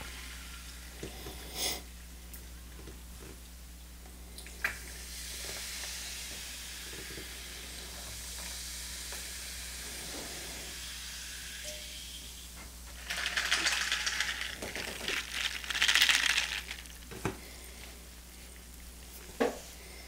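Carbonated drink poured from an aluminium can over ice in a tall glass, fizzing and crackling as the foam rises, louder in two stretches past the middle. A few sharp clicks stand out.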